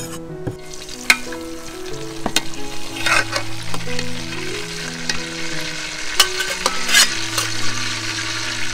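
Food frying in a pan, sizzling steadily as it is stirred, with a utensil knocking against the pan several times.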